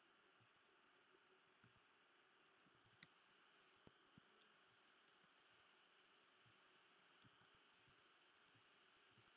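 Near silence: faint room hiss with scattered soft computer mouse and keyboard clicks, the loudest about three seconds in.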